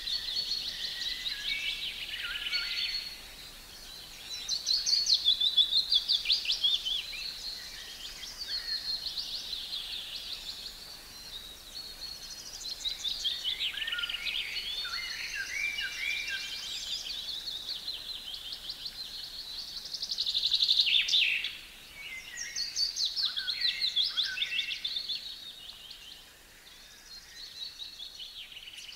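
Songbirds singing: a run of high, quick trilled and chirping phrases a few seconds each, with short pauses between them. The loudest phrases come about five seconds in and again around twenty-one seconds.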